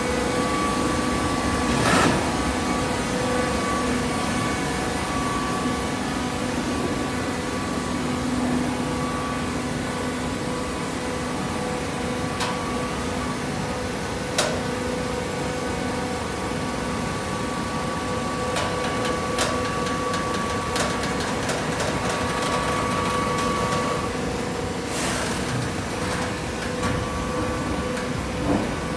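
Horizontal baling press and its hydraulic power unit running while baling coconut fibre: a steady mechanical hum with a few sharp knocks, about two seconds in, near the middle and near the end.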